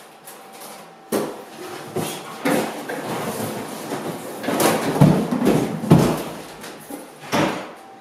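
Cardboard box being handled as an evaporative cooler is unpacked: cardboard rubbing, scraping and rustling in irregular bursts, with a couple of dull thumps about midway.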